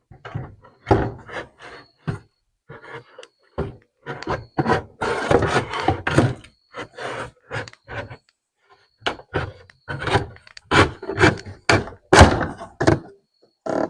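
A radio and its parts being handled and set down on a workbench: a run of knocks and thunks, with a stretch of scraping and rattling about five seconds in.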